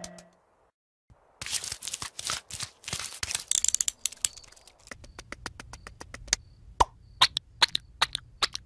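A run of sharp, irregular clicks and crackles after about a second of silence, joined about five seconds in by a low steady hum.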